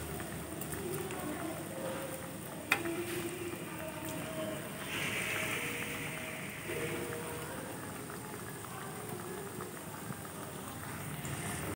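Hot oil bubbling and sizzling steadily around lumps of coarsely ground chana dal paste deep-frying in a kadai. A single sharp click sounds about three seconds in.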